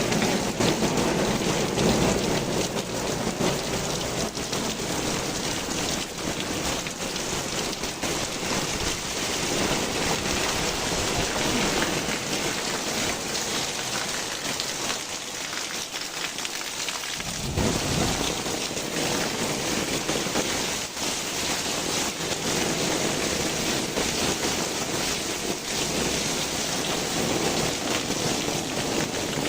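Heavy rain falling steadily, with a low rumble underneath that fades out a little past the middle and comes back abruptly.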